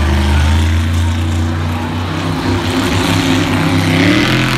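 Monster truck's supercharged V8 engine running loud and revving, its pitch shifting up and down several times as the throttle changes.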